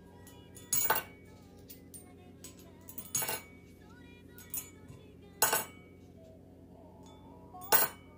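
Coins dropped one at a time into a glazed ceramic piggy bank, each landing inside with a sharp clink: four clinks about two seconds apart. Soft background music runs underneath.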